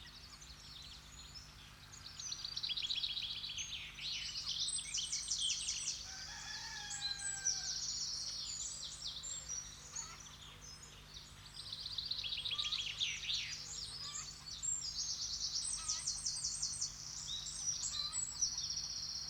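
Several songbirds singing, with rapid high trills and chirps overlapping in waves. A fainter, lower drawn-out call comes about six to eight seconds in.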